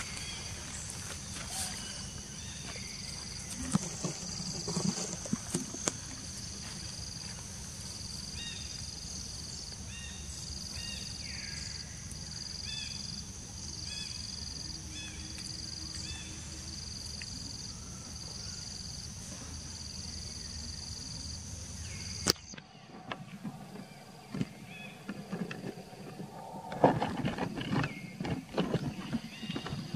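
Insects buzzing outdoors in a high, pulsing drone that switches on and off about once a second, over a low background rumble. About two-thirds of the way through the sound changes abruptly, and the drone gives way to scattered rustles and clicks.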